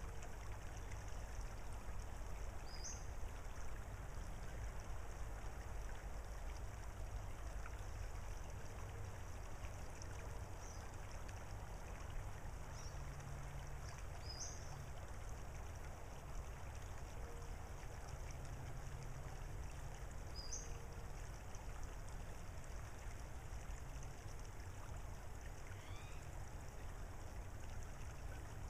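Calm salt-marsh ambience: a steady low rushing of water and air, with short high bird chirps every few seconds and one falling whistle near the end.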